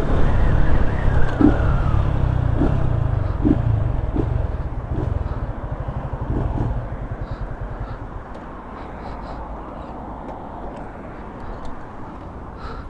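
Yamaha Fazer 250 single-cylinder motorcycle engine, running without its air filter, slowing down with a falling engine note as the bike pulls up. It settles into a low idle and then dies away about eight seconds in.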